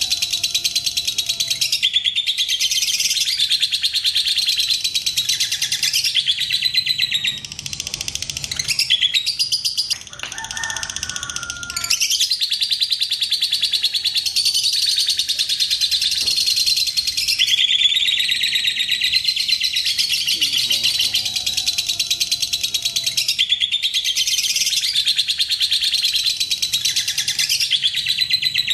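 Fischer's lovebird singing a long 'ngekek': a high, very fast ticking chatter that runs on for several seconds at a stretch, broken by short pauses. It is the long, unbroken song of a lovebird in full voice.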